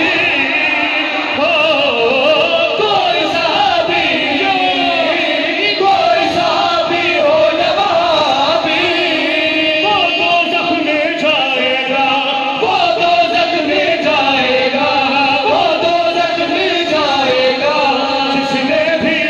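Several men singing a devotional qaseeda (manqabat) together through microphones and a PA, with long, ornamented notes that bend and waver in pitch.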